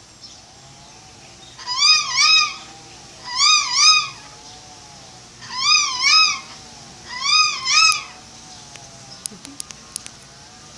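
An animal calling four times, each call a pair of quick, high, rise-and-fall notes, repeated every second or two; a few faint clicks follow near the end.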